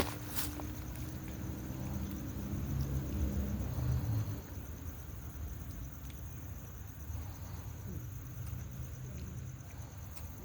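Insects, crickets by the sound of it, chirping steadily in a fast high pulsing trill over a low rumble that swells for a couple of seconds in the middle, with a sharp click right at the start.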